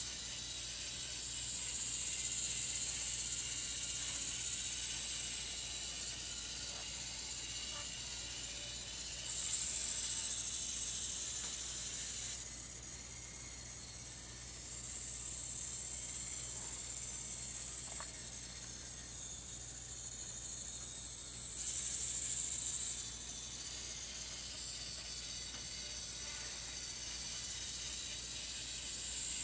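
Tiny motors and gearing of Tomytec Moving Bus System N-scale model buses running, a high-pitched whirring that swells and fades, dropping away for stretches as the buses move and pause at the stops.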